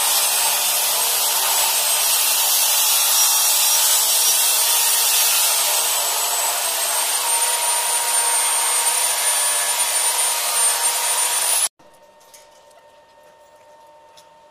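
Power tool running steadily: a loud hiss with a thin high whine, cutting off suddenly near the end.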